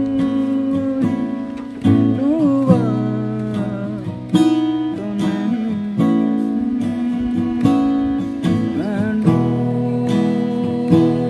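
Acoustic guitar strummed in a steady pattern of chords, with a man singing along in short phrases now and then.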